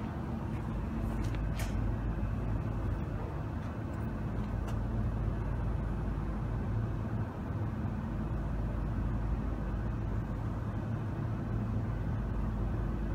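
AKD3000D12 auto-pointing satellite dish's positioner motors running steadily as the dish sweeps round searching for the satellite, with a low hum and a couple of clicks about a second and a half in.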